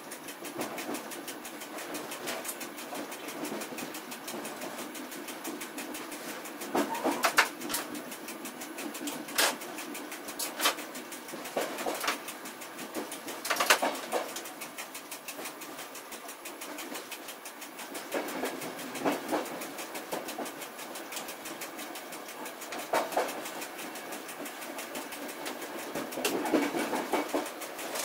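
Train running noise heard from inside the driving cab of a double-deck regional train's control car, with sharp knocks every few seconds as the wheels pass over rail joints and switches.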